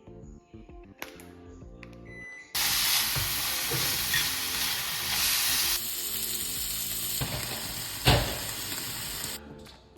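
Loud sizzling hiss, like food frying in a hot pan, which starts suddenly about two and a half seconds in and cuts off near the end. Soft background music plays before it.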